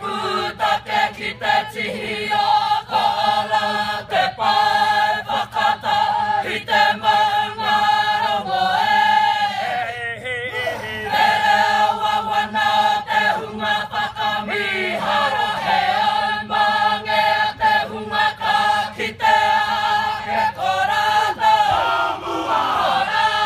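Kapa haka group of men and women singing a Māori waiata in chorus, led by a male voice.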